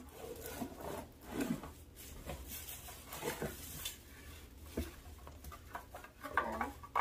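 Plastic bag crinkling and rustling, with cardboard scraping, as a bagged appliance is slid out of its box and handled; the noises come in short, irregular bursts.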